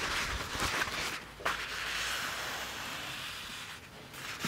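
Paper towel rustling as it is folded, then a steady scrubbing hiss as it rubs over an oiled cast-iron Dutch oven lid, wiping off the excess seasoning oil to leave a thin film before burning in.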